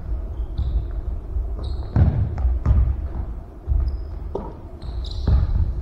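Basketball bouncing and sneakers squeaking on a hardwood gym floor during play, echoing in a large hall. There are a handful of separate thuds about a second apart and a few short, high squeaks.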